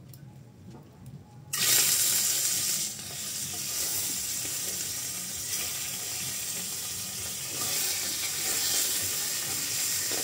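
Salted climbing perch laid into hot oil in a wok: the oil starts sizzling loudly and suddenly about a second and a half in, then keeps frying steadily.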